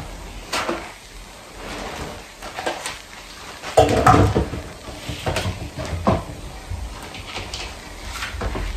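Kitchen handling noises: scattered knocks and clatters, the loudest about four seconds in and another about six seconds in.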